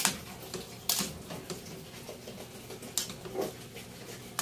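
A few sharp clicks and knocks of kitchen cookware being handled, spaced a second or two apart, over a low steady hum.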